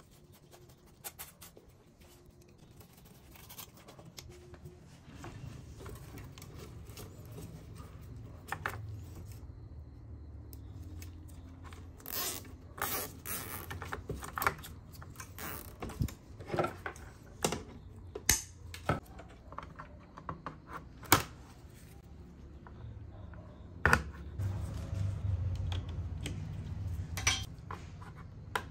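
Handling noise from taking apart a desktop computer: scattered sharp clicks and light knocks of metal chassis parts and plastic cable connectors, with a low rumble underneath at times.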